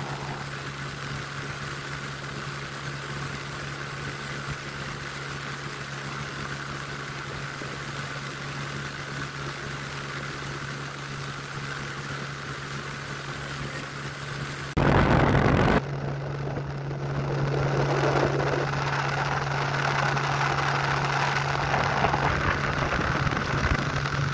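Small boat's outboard motor running steadily, with an even hum. About fifteen seconds in comes a sudden loud rush of noise lasting about a second; after it the motor is louder, running at speed.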